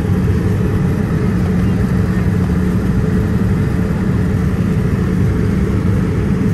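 Steady, loud low engine drone with a constant hum, unchanging throughout.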